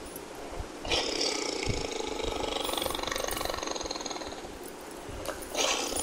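Tiger roaring: one long roar begins about a second in and trails off after about three and a half seconds, and a second roar starts near the end.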